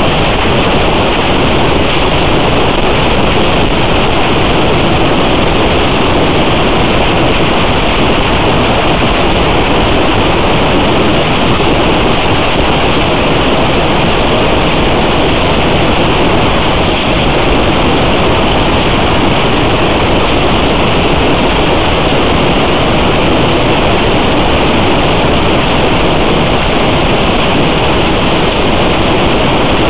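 Loud, even static hiss with no tone or rhythm in it.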